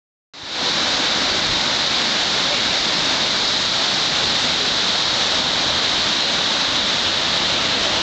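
Steady rush of a river in flood, fast brown water churning around the stone piers of an arched bridge.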